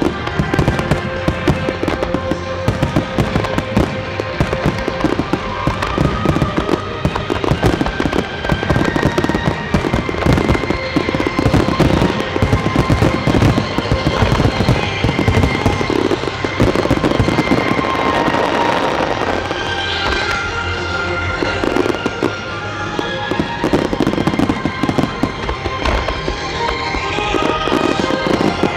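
A starmine fireworks barrage: launches and bursts fired in quick, dense succession, crackling and banging without a break. Music plays over the bursts.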